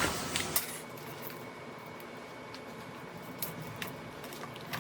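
Quiet workshop with a few faint metallic clicks spread through it, as a chain-type oil filter wrench is handled and fitted around an engine oil filter.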